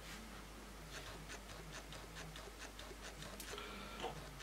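Faint, irregular small clicks and taps, a few a second, from a fine paintbrush dabbing in a bottle cap of gloss and tweezers handling a small model part on a cutting mat.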